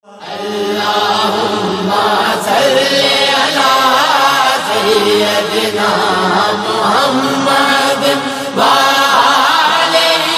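Devotional vocal chanting in a slow, drawn-out melody, fading in at the start.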